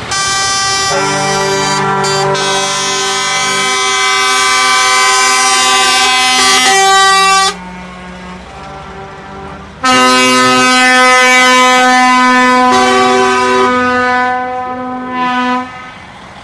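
Multi-tone truck air horns sounding as a loud chord in two long blasts of about six to seven seconds each, with a short pause between them. Some notes of the chord drop in and out during each blast.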